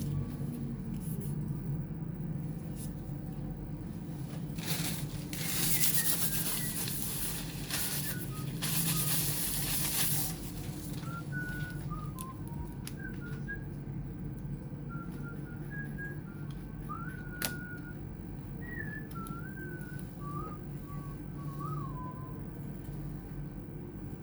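A person whistling a soft, wandering tune in short notes over a steady low hum. A louder hiss runs for about five seconds near the start, and there is a single sharp click about two-thirds of the way through.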